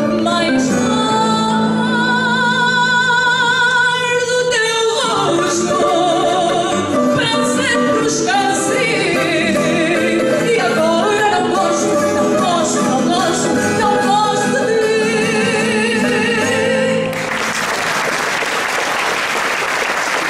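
A woman sings the last lines of a fado with accompaniment, holding notes with a wide vibrato. About 17 seconds in the song ends and the audience breaks into applause.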